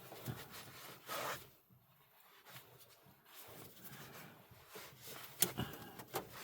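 Faint rubbing and scraping of a hand tool tightening a screw on a battery ground cable connection, with a couple of short metallic clicks near the end.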